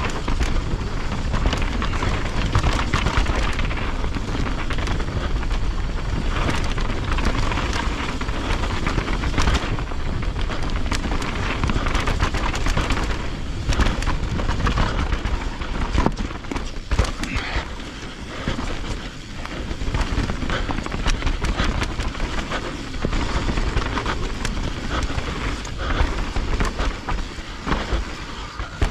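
Mountain bike riding a dirt trail: wind rumbling on the bike-mounted or helmet camera's microphone, tyres on loose ground and the bike rattling over bumps.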